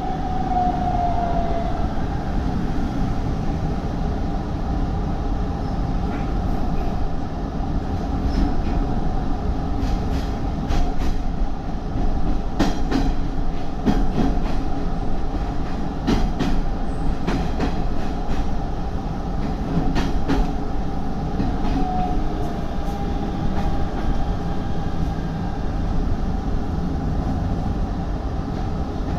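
Hanshin 5500-series electric train running on the Mukogawa Line, heard from inside the car as a steady rumble. Its wheels click over rail joints now and then, most often through the middle stretch, and a brief tone sounds near the start.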